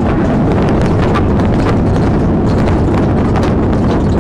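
Vehicle driving fast across a rough, uneven farm field: a loud, heavy low rumble with irregular knocks and clatter from the bumpy ground.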